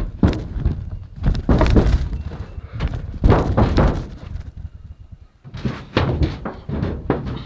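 Irregular hollow thunks and knocks on a rusty sheet-metal barn roof, in several loud clusters with a short lull just after the middle.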